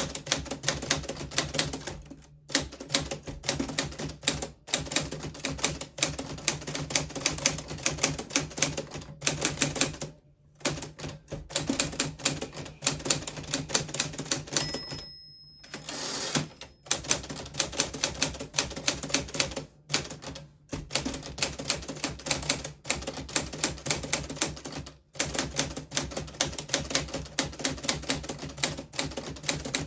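Typing on a 1940s Smith Corona Silent manual typewriter: keys clattering in quick runs, broken by a few short pauses. About halfway through, a brief ringing tone comes before a short rushing sound.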